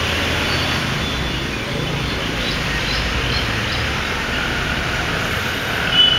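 Steady background rumble and hiss of distant road traffic, with a few faint short high chirps and a brief high tone near the end.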